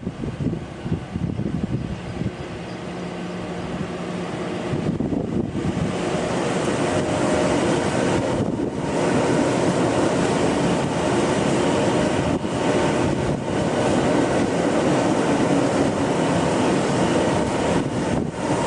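Puyuma Express electric train running across a steel railway bridge, a continuous rumble that grows louder over the first several seconds and then holds steady.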